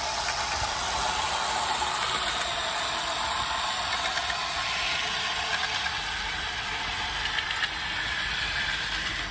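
O gauge model train running along metal track, its wheels and motor gears making a steady mechanical rattle.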